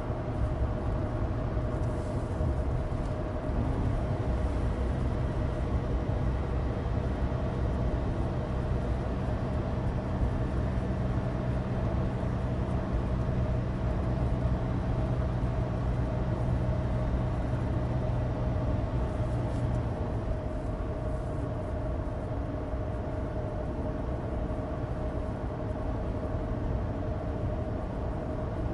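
Inside the cabin of a Suzuki Alto Turbo RS on the move: the 660 cc turbocharged three-cylinder engine runs steadily under a steady drone of studless winter tyres on dry asphalt. The low engine hum eases about twenty seconds in.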